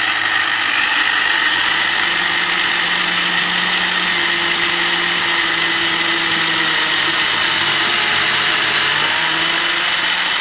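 Electric drill running steadily as its bit bores through a stack of twelve taped-together wooden ice cream sticks, the motor's tone stepping up a little about a second and a half in.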